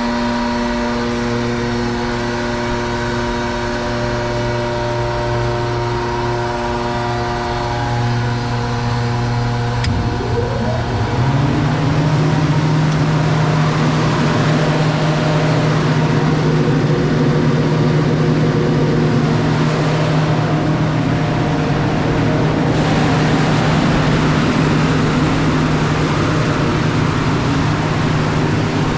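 Gardner Denver 75 HP rotary screw air compressor running with a steady hum. About ten seconds in there is a click and the pitch rises over about a second, after which it runs steadily, a little louder and noisier.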